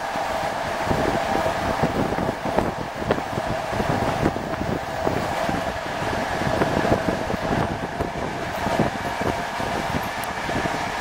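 Moving passenger train heard from the vestibule with its exterior door open: a steady rush of wind and wheel-on-rail running noise, with frequent irregular knocks and rattles from the carriage.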